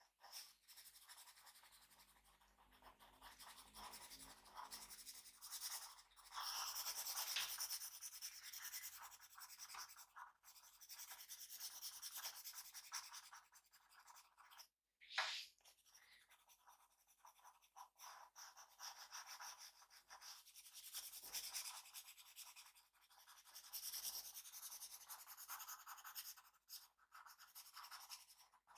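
Faint scratching of a drawing tool on paper, in strokes of varying length with short pauses between them.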